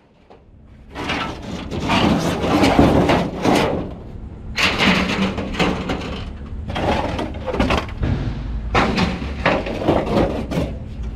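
Scrap aluminum sheet and shred being tossed onto a pile: metal clattering and crashing in four or five bunches of bangs.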